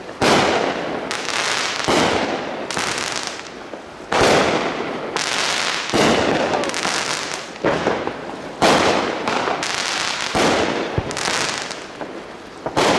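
Aerial firework shells going off one after another, a loud bang about every one and a half to two seconds, each followed by a fading crackle.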